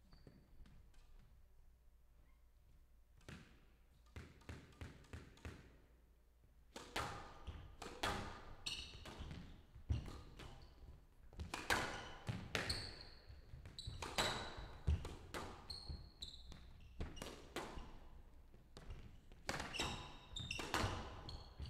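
A squash rally: the ball cracking off rackets and the walls of a glass court, with short high squeaks of shoes on the court floor. It is preceded by a few light taps about two a second, and the rally starts about seven seconds in.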